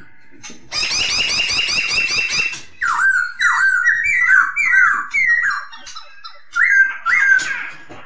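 Laughingthrush (poksay) singing. First comes a fast, dense chattering trill lasting about two seconds, then a run of loud, clear whistled notes, each sliding down in pitch, about two a second.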